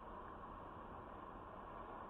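Faint, steady hiss with no distinct events.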